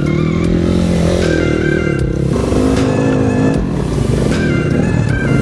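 Dirt bike engines revving up and down as the bikes ride a trail, with background music playing over them.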